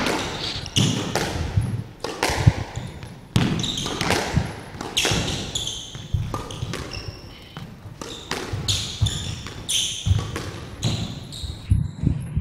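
A squash rally: the ball cracks off rackets and the court walls in an irregular run of sharp, echoing hits, with short squeaks of court shoes on the wooden floor.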